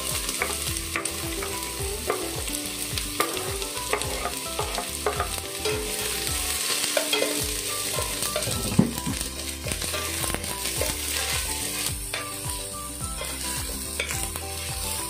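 Sliced onion sizzling in hot oil with browned garlic in a stainless steel pot, stirred with a metal spoon that scrapes and clicks against the pot. The onion goes in at the start, and there is one sharper clank about nine seconds in.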